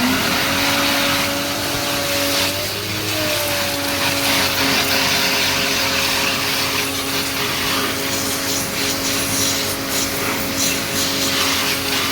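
Electric pressure washer switching on suddenly and running steadily with a hum over a rushing spray, its pitch wavering briefly about three seconds in.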